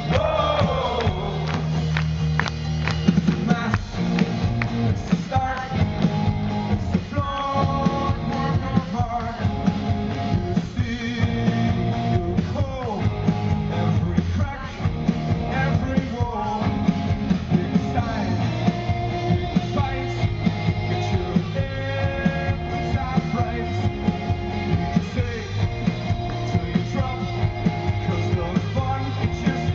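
Rock band playing live, with singing over the band and a steady drum beat.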